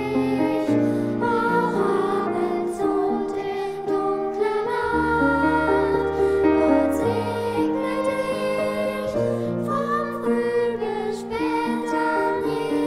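Gentle, slow music: held notes that change in steps over a low bass line, with no speech.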